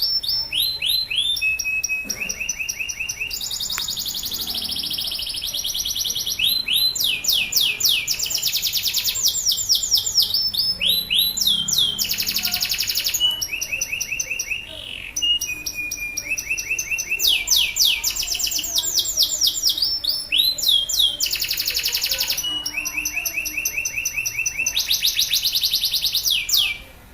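Male domestic canary singing steadily: long, fast trills of repeated high falling notes, strung one after another with only short breaks.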